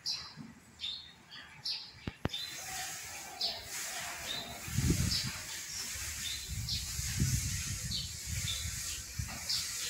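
Small birds chirping over and over in short high notes. About two seconds in a sharp click comes, followed by a steady hiss and uneven low rumbles.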